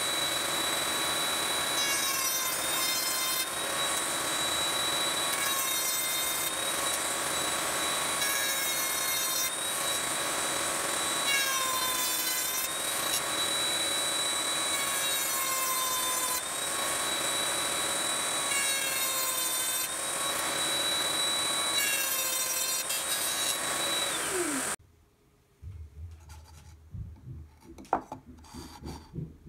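Ryobi MTR-42 trim router running in a router table, a steady high whine, with a burst of cutting noise every few seconds as the board is pushed across the bit to cut box-joint fingers; the pitch dips under load. About 24 seconds in the motor winds down and stops, leaving light handling of the wood pieces and one sharp knock near the end.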